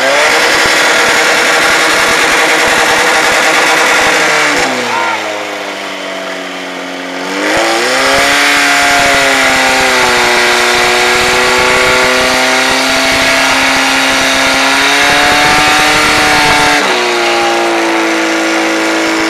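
Portable fire pump engine running hard at high revs. Its pitch sags for a few seconds about five seconds in, climbs back and holds steady, then drops a little near the end.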